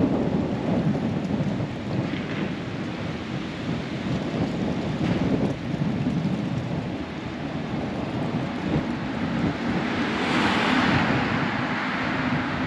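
Wind buffeting the camera microphone as a low, steady rumble over street noise, with a car driving past about ten seconds in.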